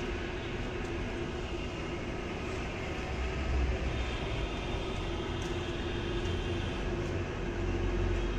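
A steady mechanical hum over a low rumble, with the rumble swelling briefly about three and a half seconds in and again near the end.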